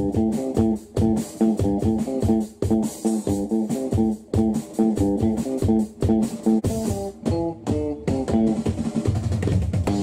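Background music: guitar and bass over a drum kit, playing a steady, repeating beat.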